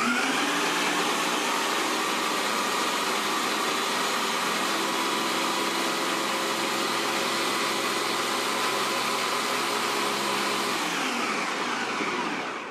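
Ninja blender motor running steadily, chopping slices of bread into fine crumbs, then spinning down in pitch and stopping near the end.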